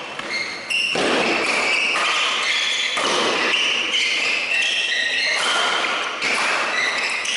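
Badminton doubles rally: players' shoes squeak over and over on the court floor, mixed with rackets striking the shuttlecock.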